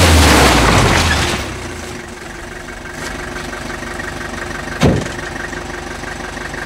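Mercedes-Benz minibus pulling up on a muddy track, its engine slowing as mud and water spray from the wheels, then idling steadily. A van door slams shut about five seconds in.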